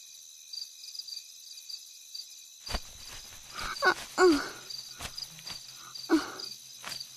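Crickets chirping in a steady, even repeating pattern. Over them a person makes a few short low vocal sounds, like murmurs or sighs, from about three to four seconds in and again near six seconds, with a few faint knocks.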